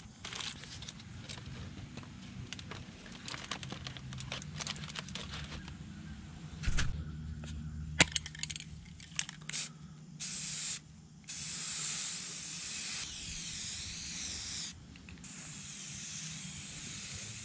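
Aerosol spray paint can spraying. There is a short hiss about ten seconds in, then two long hisses with a brief gap between them. Before the spraying, scattered clicks and rustling handling noises.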